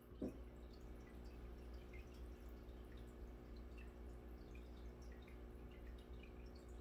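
Faint aquarium bubbling: small air bubbles rising and popping at the water surface in scattered light drips and ticks, over a steady low hum. A short low knock sounds about a quarter second in.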